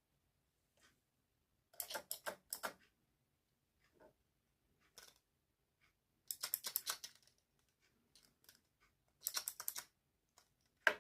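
3D-printed fidget clicker being clicked rapidly, with keyboard-like clacks: three short flurries of quick clicks, then one sharp single click near the end.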